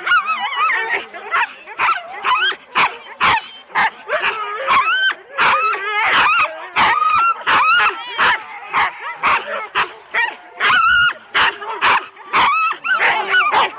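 Siberian huskies in harness barking and yelping in a dense, continuous clamour, several barks a second, with wavering high-pitched cries among them: sled dogs worked up and eager to run at the start line.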